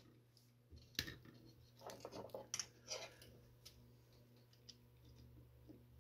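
Faint scratches and light clicks of metal hand tools touching a circuit board as a surface-mount capacitor is held down and soldered, clustered in the first few seconds, over a steady low hum.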